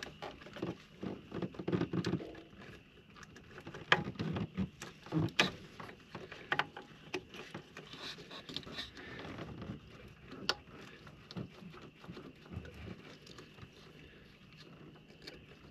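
Hands working the fuel-line connectors off the under-hood fuel filter housing of a Ford 6.7L Powerstroke diesel: irregular clicks, knocks and rattles of plastic fittings, the sharpest about four, five and ten seconds in.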